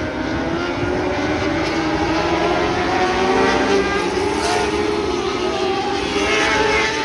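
Several lightning sprint cars racing at speed, their engines running high and overlapping, pitches rising and falling as the cars pass and go round the track.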